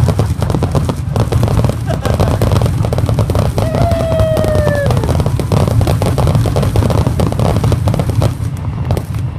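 Fireworks finale: a rapid, unbroken barrage of bangs and crackling over a low rumble, with a single falling whistle about four seconds in.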